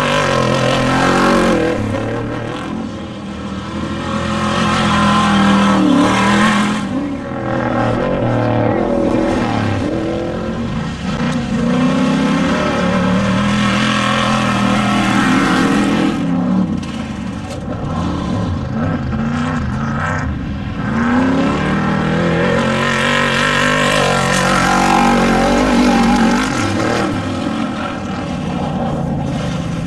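Off-road desert race vehicle engines running hard, their pitch climbing and dropping again and again as the throttle opens and closes.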